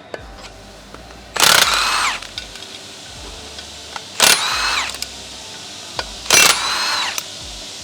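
Impact wrench (rattle gun) run in three short bursts about two and a half seconds apart, each ending in a falling whine, undoing the bolts that hold the brake rotor to the hub.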